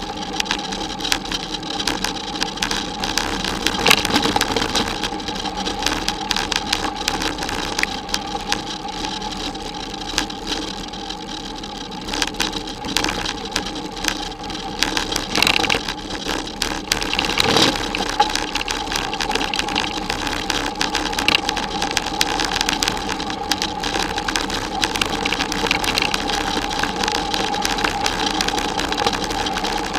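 A bicycle rolling over a rough dirt and gravel track: continuous rattling and clattering of the bike and its camera mount, with a steady hum underneath. One harder jolt comes a little past halfway.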